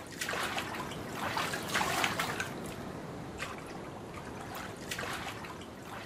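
Water-splashing sound effect layered over ocean-beach ambience, a rushing wash with irregular splashes, loudest about two seconds in.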